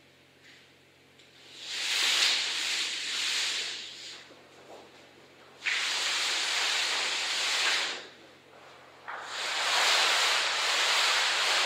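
A large sheet of black paper being dragged and slid across the floor, giving a hissing scrape in three long pulls of about two seconds each.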